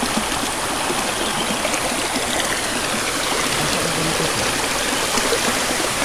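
Steady rushing of a mountain stream and small waterfall pouring over rocks.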